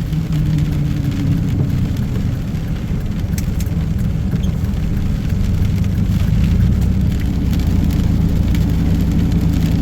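Steady low rumble with a faint hum, as of a motor vehicle running, with scattered light ticks over it.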